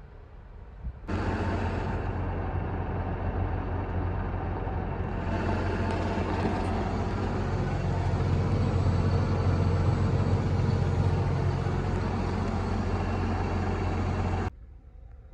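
Heavy diesel farm machinery running steadily with a strong low drone. It starts suddenly about a second in and cuts off suddenly near the end.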